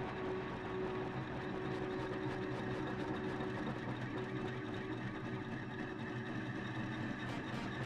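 Background music of steady, held droning tones.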